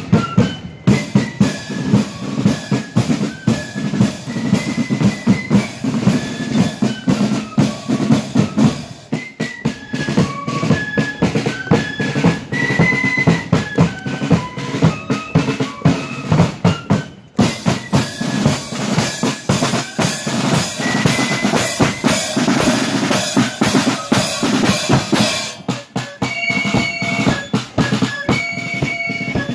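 Marching flute band playing a tune: flutes carrying a stepping melody over rapid snare drum strokes and bass drum beats.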